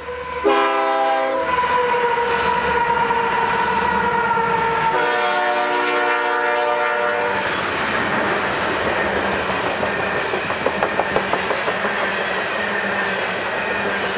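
Canadian Pacific GE AC4400CW diesel locomotive sounding its horn as it passes close by: a short blast, then a longer one about five seconds in. Its coal cars follow, rolling past with the wheels clacking over the rail joints, a quick run of clacks near the middle.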